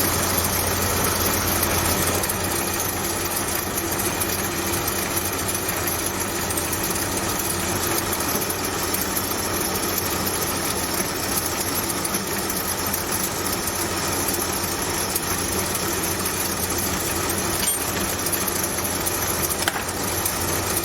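Home-built Gingery milling machine running steadily under its electric motor, a constant machine hum. It cuts off right at the end.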